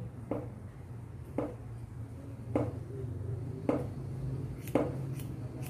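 Hairdressing scissors snipping through sections of hair, six sharp crisp snips about a second apart, over a steady low hum.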